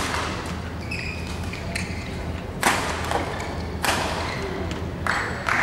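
Sharp knocks echoing through a large hall: two loud ones a little over a second apart, with fainter ones around them, over a steady low hum.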